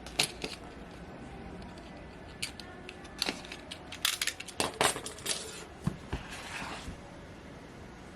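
Unboxing handling of a product box and its packaging: scattered clicks and taps, a cluster of louder knocks about four to five seconds in, and a short rustle around six seconds in.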